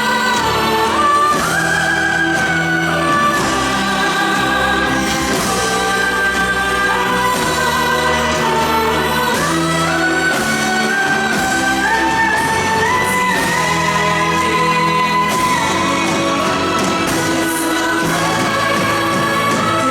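Song from a live stage show: voices singing long held notes in a melody that climbs step by step, over a steady musical backing.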